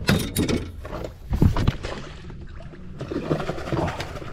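Knocks and rustling from moving about on a small fishing boat's deck, with a sharp knock near the start and another about a second and a half in, over a low steady rumble.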